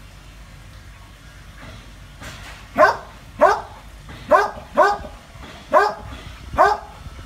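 A dog barking six times in short bursts at a monitor lizard, the first about three seconds in and the rest over the next four seconds.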